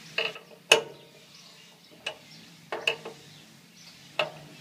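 About six sharp metallic clicks at uneven intervals as a 9/16 wrench is fitted and turned on a brass hose barb threaded into a T fitting on a fuel regulator.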